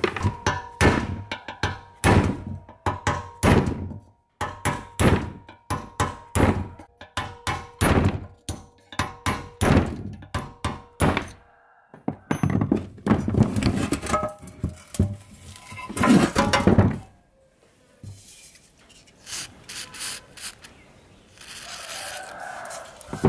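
Hammer blows knocking on the metal joint of an old electric fan's arm and motor housing: sharp knocks about two a second for the first ten seconds or so, then in irregular bunches.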